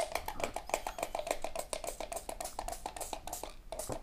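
Small nylon-bristle brush scrubbing a dirty AR-15 bolt in quick, even back-and-forth strokes, about ten a second, with a short break near the end.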